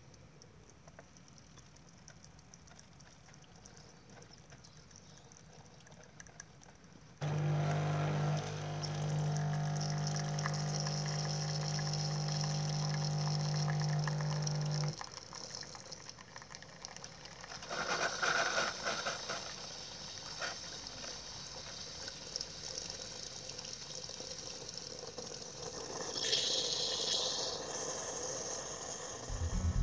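Bosch Tassimo pod coffee machine brewing. After several quiet seconds its pump starts suddenly with a loud steady hum for about eight seconds, then the drink streams and hisses into the cup, with louder spells of hissing near the end.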